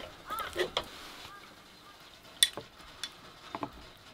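A wooden spoon stirring and scooping cooked rice in a small stainless steel pot, with a few sharp knocks of the spoon against the dishes. The loudest knock comes about two and a half seconds in.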